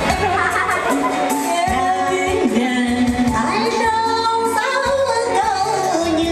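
A woman singing a Vietnamese song into a microphone over backing music.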